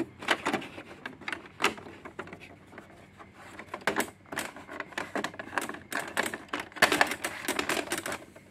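Plastic cover plate being pressed and snapped into place on a Brother inkjet printer's plastic body: a string of sharp plastic clicks and taps, thickest about four seconds in and again near the end.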